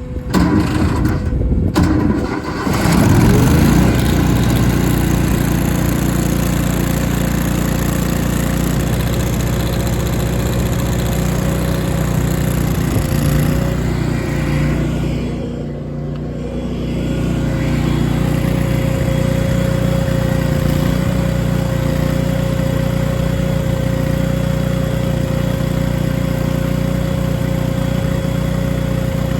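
Miller Bobcat engine-driven welder starting: a few seconds of uneven cranking and catching, then the engine settles into a steady run with a constant whine. About halfway through it eases briefly, then picks back up.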